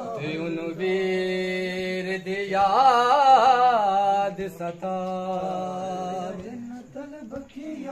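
Men's voices chanting a Punjabi noha, a Muharram lament, in long drawn-out notes. A steady low note is held underneath. Higher notes waver and are loudest a few seconds in.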